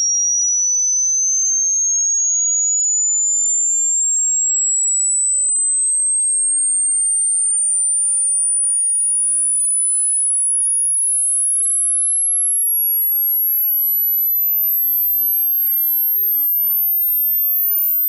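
A single pure high-pitched test tone sliding slowly and smoothly upward in pitch at an even loudness, climbing toward the very top of human hearing: a hearing-test tone sweep meant to find the highest pitch the listener can still hear.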